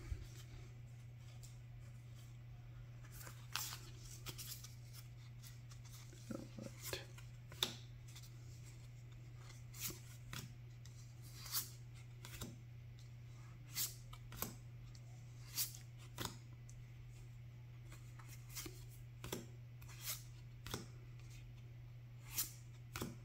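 Lord of the Rings trading cards being flipped through one at a time by hand: short, sharp card snaps and slides every second or two, over a steady low hum.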